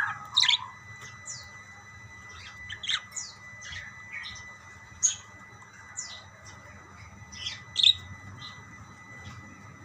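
Parakeets calling back and forth in short, scattered chirps and squawks, the loudest about five and eight seconds in, over a faint steady high tone.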